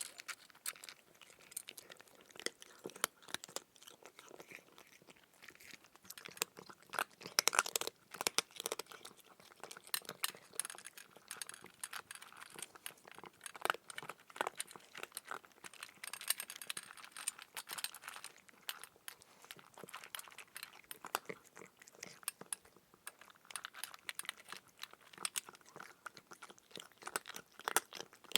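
A cat chewing food, a long run of irregular crunches, loudest about a quarter of the way in.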